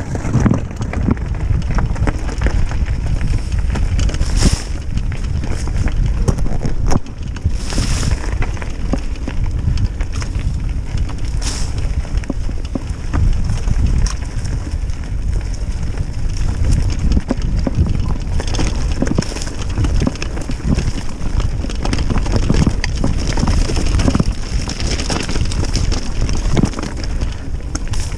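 Mountain bike riding downhill over rough ground: heavy wind buffeting the microphone, with a constant run of rattles and knocks from the bike and tyres over bumps.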